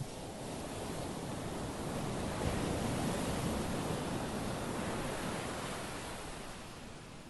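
Sea waves breaking on a pebble beach. The surf swells over the first few seconds and eases off toward the end.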